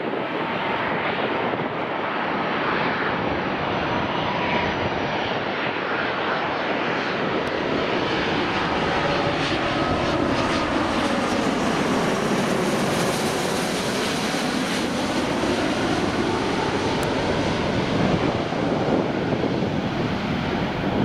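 Airbus A330-200 twin-engine jetliner passing low overhead on final approach with its gear down. The steady rush of its jet engines grows brighter and hissier as it goes over, about two-thirds of the way through, with faint whining tones and sweeping shifts in tone as it passes, then begins to fade as it flies away.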